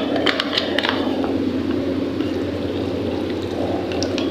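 Steady low mechanical hum in a kitchen, with a few light clicks and rattles in the first second as a milk packet is pulled from a refrigerator door shelf among plastic bottles.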